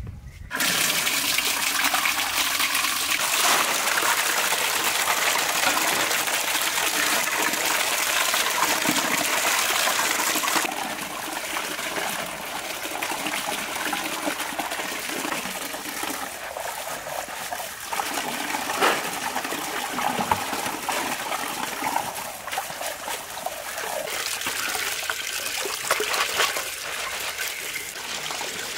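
Water pouring from a pipe into a large metal basin of chili peppers as they are rinsed by hand. The flow starts suddenly about half a second in and runs strong, then after about ten seconds it becomes quieter, with more uneven splashing.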